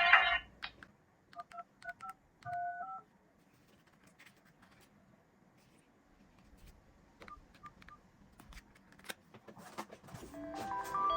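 Phone keypad dialing tones: a quick run of short two-note beeps as a number is keyed in, then faint taps. A ringtone cuts off at the start and a new ringtone begins near the end.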